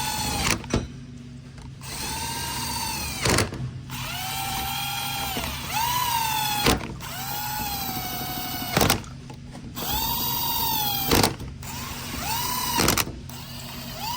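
Cordless drill-driver spinning in 6L80 valve body bolts in about seven short runs of a second or two each, the motor's pitch rising as each run starts, with sharp clicks in the gaps between bolts. The bolts are run in snug only, to be torqued afterwards.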